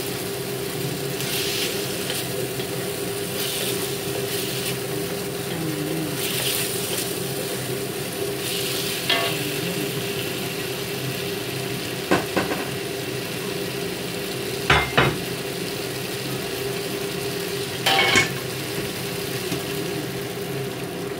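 Beef cubes sizzling in a wok, stirred with a wooden spatula that scrapes the pan and knocks against it several times, over a steady hum.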